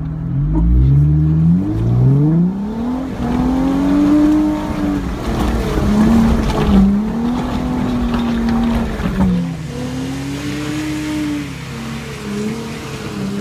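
Jeep Wrangler Rubicon engine revving up steeply, then running with revs rising and falling as it crawls over rocks on an off-road trail.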